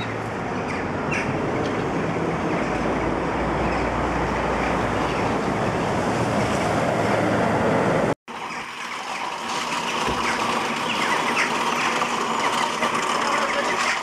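Steady outdoor street noise, a rush of traffic on a wet road with a low rumble under it, which breaks off abruptly about eight seconds in. It resumes with many short gull calls over the rush.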